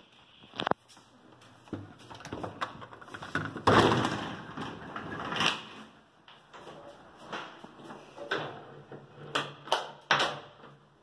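Residential elevator's hinged door and sliding plastic inner door being opened and shut by hand. It gives a string of clicks, knocks and sliding rattles, the loudest about four seconds in.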